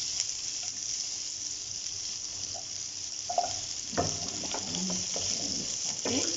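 Chopped onions and green peppers sautéing in oil in a non-stick wok, a steady hiss of frying, with a silicone spatula stirring and scraping the pan, the sharpest strokes about four and six seconds in.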